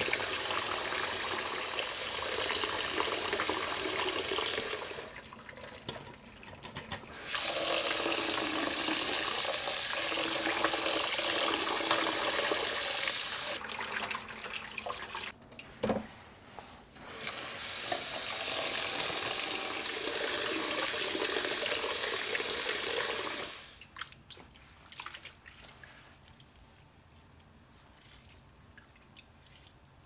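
Kitchen tap running into a pot of cooked rice vermicelli noodles in a stainless steel sink as they are rinsed. The water runs in three long stretches a few seconds apart. Between them there is quieter sloshing and a single sharp knock, and near the end only dripping and splashing.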